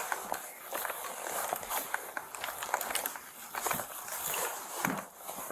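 Footsteps and movement: scattered light clicks, taps and rustling as someone walks about the room.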